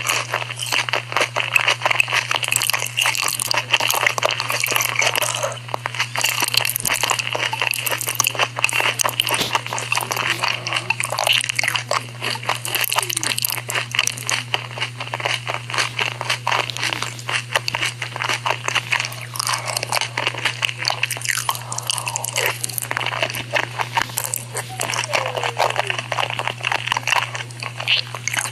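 Close-up ASMR eating of corndogs and noodles: continuous crunchy biting and chewing, with a steady low hum underneath.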